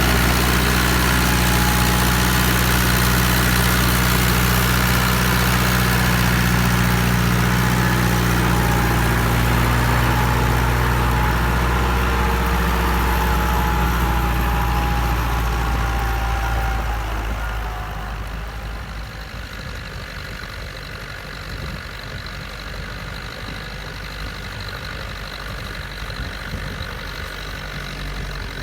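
Massey Ferguson 274 S tractor's diesel engine running steadily under ploughing load, then growing quieter and duller about two-thirds of the way through.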